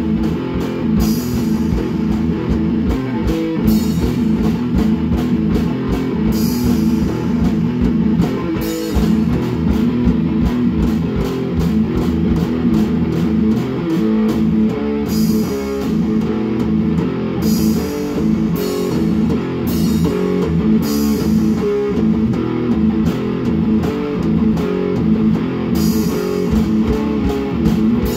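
Rock music: a drum kit played along with guitar chords, with cymbal crashes every two to three seconds over the steady guitar.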